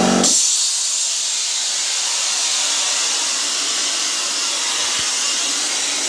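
Compressed air hissing steadily through a CIG Weld Easy Cut 35 plasma cutter's torch after the cut, loud enough to be called bloody noisy. A humming tone cuts out just after the start, leaving only the air.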